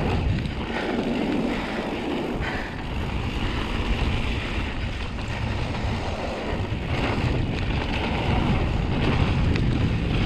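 Mountain bike rolling down a dirt trail: tyres on dirt and the bike rattling, with wind rushing over the camera microphone and a few small knocks.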